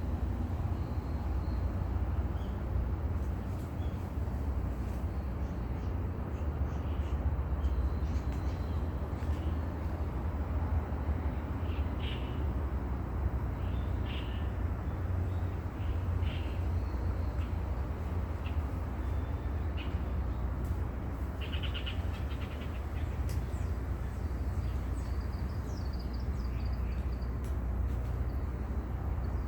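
Steady low outdoor rumble by the sea, with short bird chirps scattered through it every few seconds.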